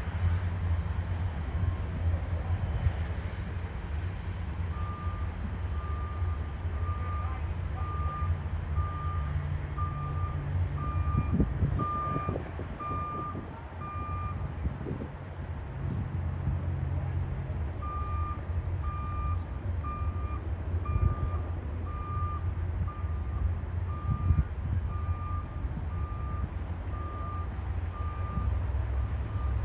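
Steady low drone of the Goodyear blimp's propeller engines overhead. A backup alarm beeps over it at an even pace, about three beeps every two seconds, starting a few seconds in and pausing for a few seconds near the middle.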